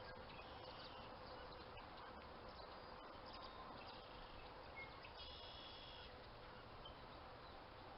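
Near silence outdoors: a faint steady hum, with a couple of faint high chirps about five seconds in.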